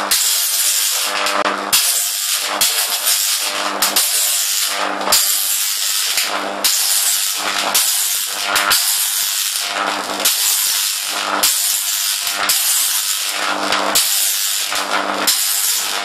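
High-voltage arc on a Jacob's ladder fed by a stacked microwave-oven-transformer supply: a loud crackling buzz with a low mains hum under it. The arc breaks and restrikes roughly once a second.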